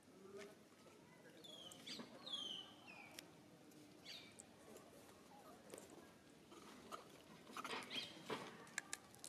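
Faint, high chirping calls, several short ones each falling in pitch during the first few seconds, then scattered light clicks and taps later on.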